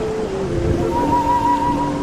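Slow ambient music over a steady hiss of rain: long held tones change pitch in steps, and a wavering higher tone comes in about a second in.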